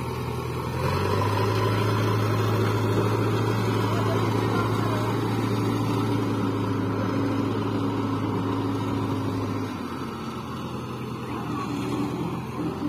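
JCB backhoe loader's diesel engine running steadily at working revs, then dropping to a lower, quieter note about ten seconds in.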